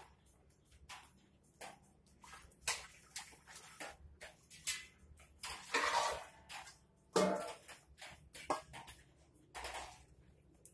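Stainless-steel basins and a metal ladle being handled while herbs are washed: scattered clinks and knocks of metal, with a rush of water poured out of a tipped basin about six seconds in and a ringing clank just after.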